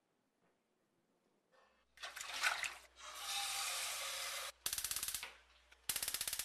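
Gunfire sound effects played over a hall's PA: a noisy crash and a rushing hiss, then two short bursts of rapid automatic fire about a second apart.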